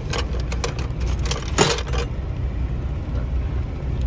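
Semi truck's engine idling as a steady low hum, with a few light metallic clinks and one louder clatter about a second and a half in as the skillet's glass lid and a fork and tongs are handled.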